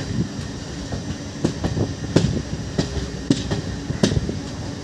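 Passenger train coaches running along the track: a steady rumble with sharp, irregularly spaced clacks of the wheels over the rails.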